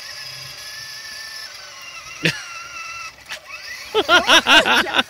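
Electric motor and gearbox of a child's battery-powered ride-on toy Lamborghini whining steadily as the car drives, with a sharp click a little past two seconds in. For the last second a child's voice is louder, in quick repeated rising and falling cries.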